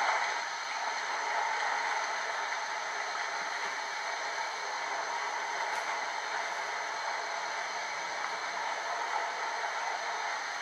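Steady rushing-water hiss from a Zimo sound decoder's 'water' function, played through the small onboard speaker of a model LNER A4 steam locomotive.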